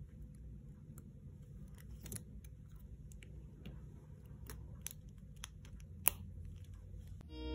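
Stainless steel manicure tools clicking and tapping lightly as they are handled and taken out of a leather pouch, a scattering of small clicks with the sharpest about six seconds in, over a low steady background rumble.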